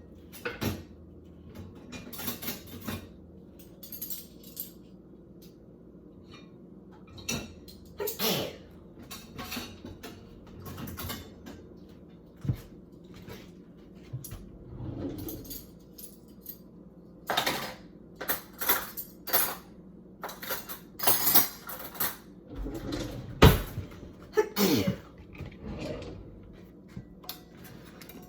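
Dishes and cutlery clinking and knocking as kitchen items are handled: irregular short clinks, sparse at first and much more frequent in the second half.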